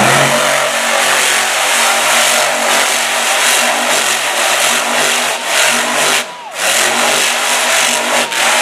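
Max-D monster truck's supercharged methanol V8 running hard at high revs while the truck spins cyclones in the dirt, dipping briefly about six seconds in before picking back up.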